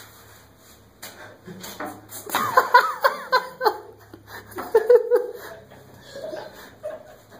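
Laughter: a loud burst of giggling lasting about a second and a half, a couple of seconds in, with scattered light taps and knocks around it.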